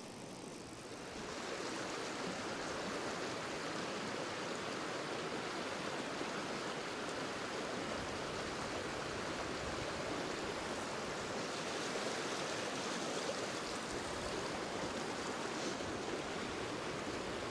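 Shallow river water rushing over rocks in a rapid, a steady rushing noise that comes up louder about a second in.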